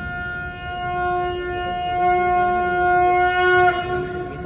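Conch shell (shankh) blown in one long, steady note through the show's loudspeakers, stopping about three and a half seconds in.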